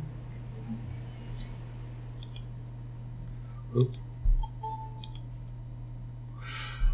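Computer mouse clicks, a few scattered single clicks over a steady low hum, the loudest two about four seconds in.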